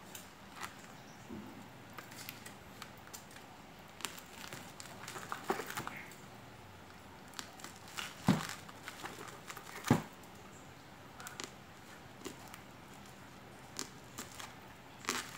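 A plastic-wrapped parcel being cut open with a pocket knife: scattered crinkling and tearing of the plastic wrap, with a burst of crackles about five seconds in and two sharp clicks, the loudest sounds, about eight and ten seconds in.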